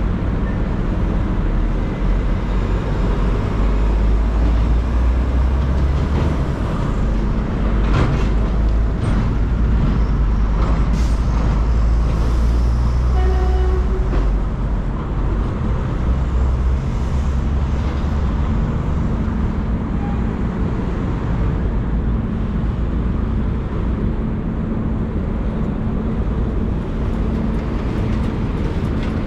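Steady city traffic rumble from passing road vehicles, including heavy ones such as buses and trucks. A short pitched tone sounds about halfway through.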